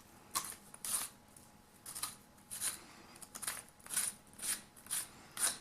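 The chuck of a vintage hand crank drill being unscrewed by hand: short metallic rasps of the threads turning, about two a second.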